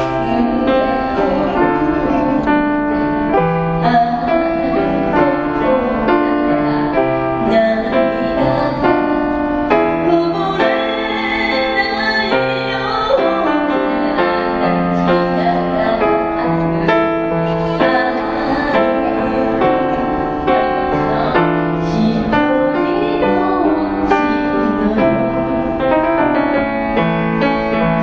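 Piano music: melody and chords over bass notes.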